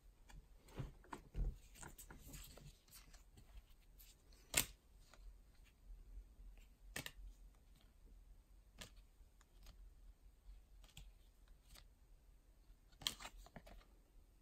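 Faint handling of a stack of Topps baseball cards, flipped through by hand one card behind another: soft slides of card stock with scattered small clicks, the sharpest about four and a half seconds in and a short cluster near the end.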